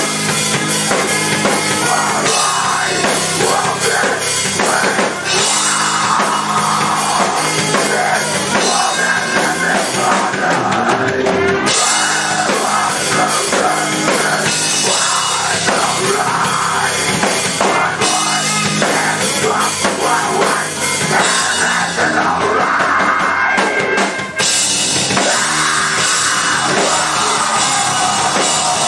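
Live heavy rock band playing at full volume: pounding drum kit, electric bass and distorted guitar in a dense, continuous wall of sound.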